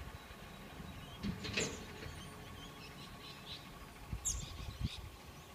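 Small birds chirping in short, scattered calls over quiet outdoor background, with a couple of brief, louder, sharper sounds about a second and a half and four seconds in.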